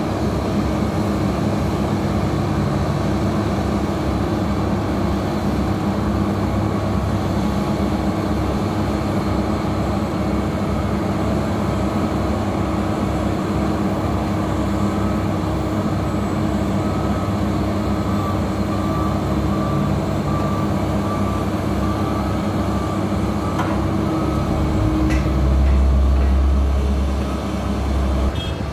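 Heavy road-construction machinery engines running steadily, with a repeating beep for about ten seconds in the middle and a louder low engine rumble that rises and falls near the end.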